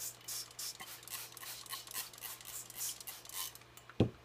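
Spray bottle of water and glycerine misting a sheet of craft card in short hissing squirts, about three a second. A brief thump about four seconds in.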